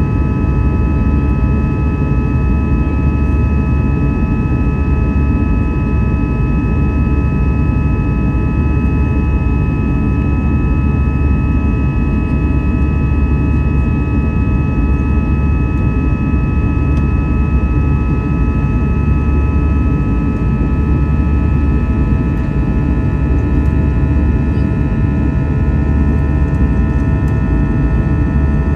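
Airbus A320's jet engines running steadily, heard from inside the cabin: a loud, even rumble with several steady whining tones over it.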